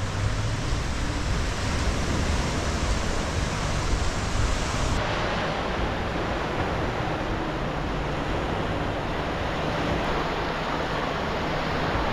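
Sea surf washing steadily in over a shallow, rocky shore, with waves breaking just offshore.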